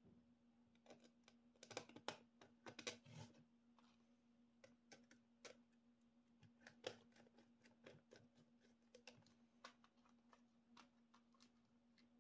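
Faint clicks and taps of acrylic panels and small screws being handled and screwed together with a small screwdriver: a run of quick clicks about two to three seconds in, then scattered single clicks. A faint steady hum sits underneath.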